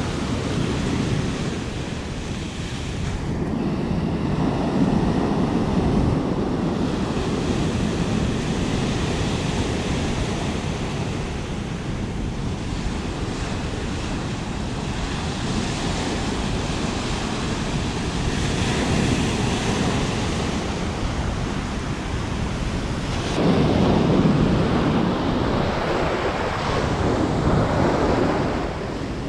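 Ocean surf breaking on a beach, with wind buffeting the microphone. Several waves swell and crash, the loudest near the end.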